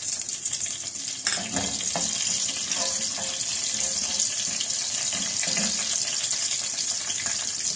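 Whole spices (cinnamon stick, cumin seeds, cloves and black peppercorns) sizzling in hot cooking oil in an aluminium pot, a steady high hiss.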